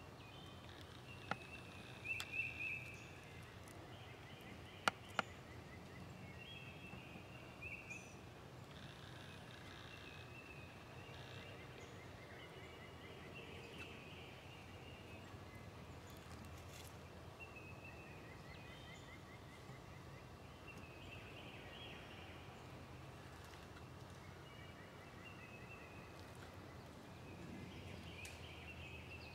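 Quiet woodland ambience with birds calling on and off throughout, short high calls and a few rapid trills, over a faint steady background. A few sharp clicks come in the first five seconds.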